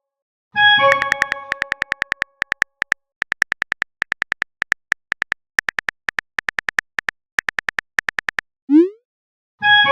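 Phone texting sound effects: a short chiming message tone, then a long run of quick keyboard-tap clicks, a brief rising pop as a message is sent, and another chime at the end.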